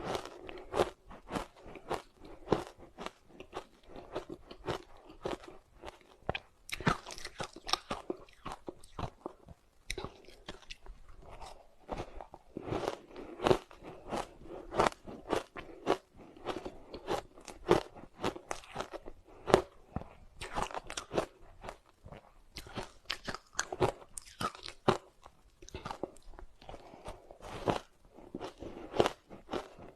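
Soft ice with matcha powder being bitten and chewed: an unbroken run of crisp, irregular crunches, many in quick succession.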